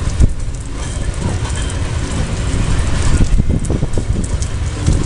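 Freight train of Pertamina fuel tank wagons rolling past: a steady low rumble with a few short knocks from the wagons on the rails.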